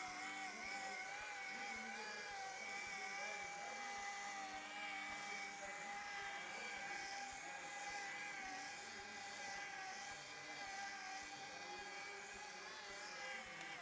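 Flex rotary polisher running steadily at its lowest speed, a motor whine that wavers slightly in pitch as the pad spreads polishing paste over the car's paint.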